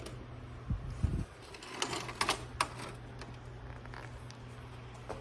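Clatter of handling: two dull low thumps about a second in, then a few sharp clicks and knocks, over a steady low hum.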